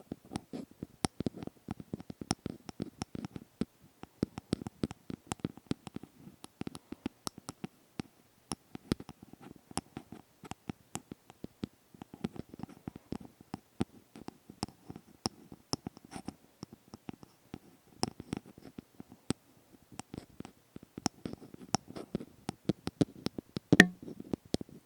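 Close-miked ASMR scratching and light tapping: a soft scratchy rustle with many quick, uneven clicks, and one louder click near the end.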